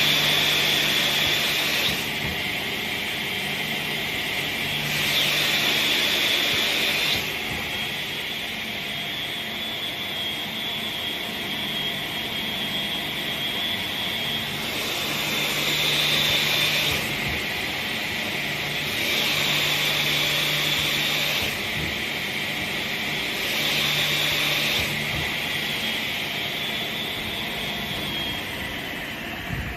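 Rema DMDK-50A crosscut saw running with a steady high whine from its spinning 50 cm blade. Five times the sound grows louder for a couple of seconds as the blade is fed through a cut in wood.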